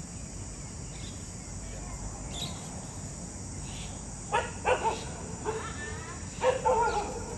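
Steady high chirring of insects, with dogs barking in short bursts in two quick clusters from about four seconds in.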